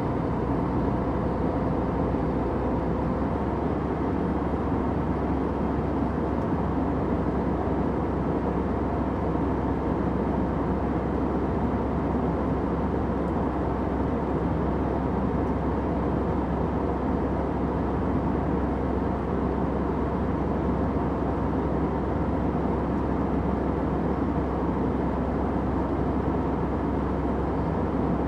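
Airplane cabin noise in flight: a steady, even drone of engines and rushing air, deepest in the low range, with faint steady hum tones over it.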